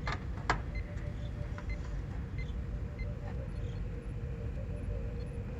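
A low, steady background rumble with a faint steady hum, and two light clicks in the first half-second as the boxed power supply is handled.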